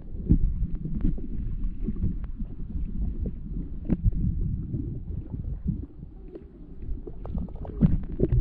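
Muffled underwater water movement recorded by a camera held underwater while snorkeling: a steady low rumble and sloshing with scattered sharp clicks, which grow more frequent near the end.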